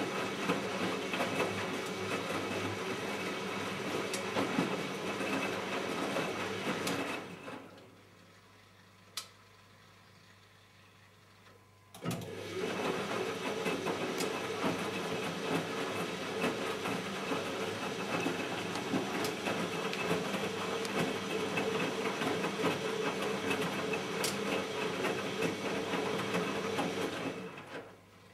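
Siemens Siwamat 960 washing machine in its main wash, the motor turning the drum in the wash cycle's start-stop rhythm. The drum runs for about seven seconds and stops for about four, with a single click in the pause. It then turns again for about fifteen seconds and stops near the end.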